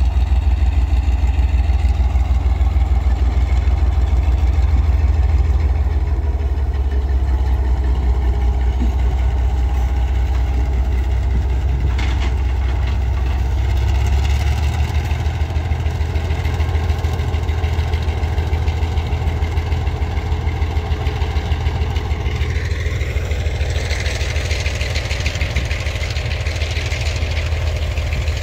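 The two-stroke EMD diesel of a G22U locomotive runs with a loud, low, fast-pulsing throb as it passes close by slowly. The throb weakens about halfway through as the locomotive moves on. In the last few seconds a hiss rises as the weed-control train's cars roll past.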